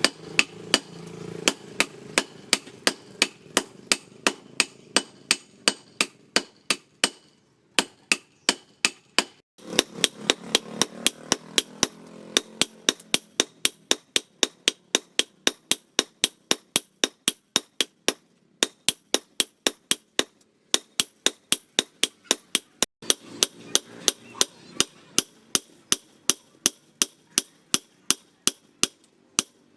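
Hammer striking steel on an anvil in a steady run of blows, about three a second, each with a bright metallic ring, as the bearing steel is forged into a knife blade. The hammering pauses for about two seconds near the end of the first third and resumes.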